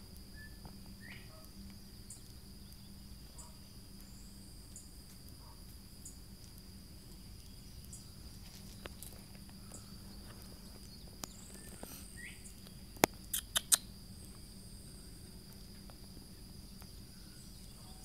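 Insects droning steadily on one high pitch, with faint short chirps scattered through. About two-thirds of the way in comes a quick run of four sharp clicks, the loudest sounds.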